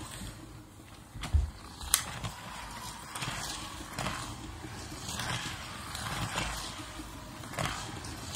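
Scalextric slot cars running round the track, their small electric motors whirring and swelling then fading again and again as the cars pass close by. A thump and a sharp plastic clack come in the first two seconds.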